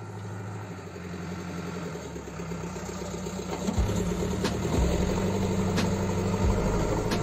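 JCB 3CX backhoe loader's diesel engine running steadily and growing louder. From about four seconds in come several sharp knocks as the front loader bucket scrapes over stony soil.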